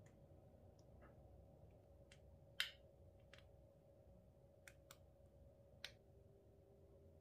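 Scattered light clicks and taps, about half a dozen, the loudest about two and a half seconds in, as plastic glitter glue tubes are moved about in a glass dish of clear slime.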